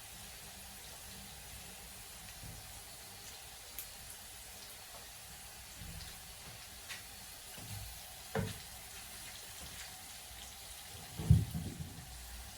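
Onions frying in oil in a pan, giving a faint, steady sizzle. A couple of short knocks sound over it, the louder one about eleven seconds in.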